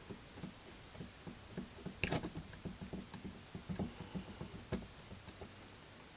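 A string of small clicks and light knocks from small hard parts being handled and fitted by hand, the loudest cluster about two seconds in.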